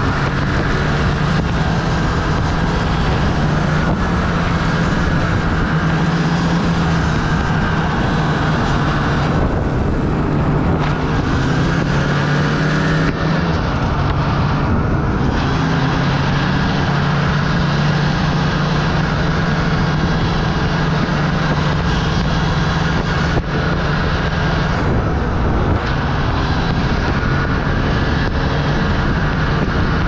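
Snowmobile engine running steadily at riding speed, its note dipping and rising again about ten to thirteen seconds in, under a steady rush of wind and snow noise.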